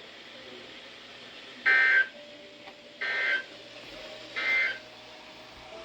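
Emergency Alert System end-of-message data bursts: three short, harsh digital chirps about a second and a quarter apart, marking the end of the warning broadcast. A faint steady tone sits underneath from about two seconds in.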